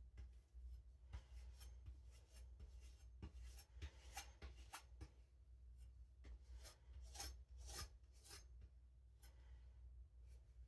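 Knife blade drawn across a whetstone in a series of short, faint scraping strokes, unevenly spaced, with a brief pause past the middle.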